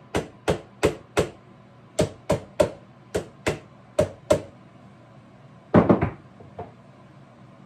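Light taps of a small hammer on the screw heads of an 1873 Springfield Trapdoor rifle, about eleven in quick groups of two to four, driving the loosened screws in to push the plate off the other side of the stock. A louder clatter comes about six seconds in.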